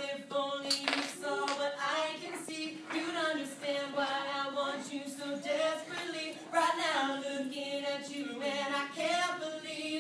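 Unaccompanied singing, voices holding long notes one after another.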